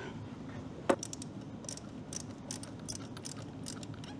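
Hand ratchet clicking in short strokes, about three clicks a second, as the front fork clamp bolts are tightened; one louder knock about a second in.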